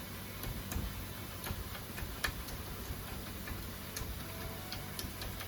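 Scattered light metallic clicks, about one or two a second and unevenly spaced, from a sterling silver cuff being worked and domed in a hand cuff press with a brass forming surface, over a steady fan hum.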